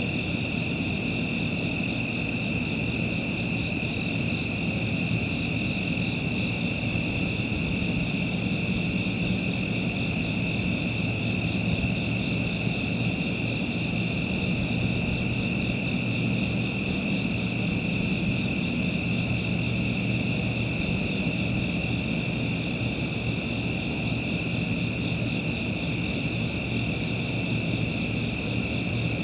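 Night insect chorus: a steady, shrill chirring in several high pitches that does not let up, over a low steady rumble.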